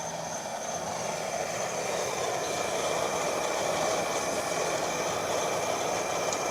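Open-flame LP gas burner running under a pot, a steady rushing noise that grows a little louder over the first few seconds.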